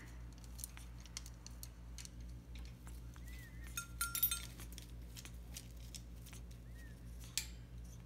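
African grey parrot climbing about its wire cage: beak and claws clicking and clinking on the metal bars and plastic food bowl, busiest around the middle, with a sharp tap near the end. A couple of brief, faint whistled notes come in around the middle as well.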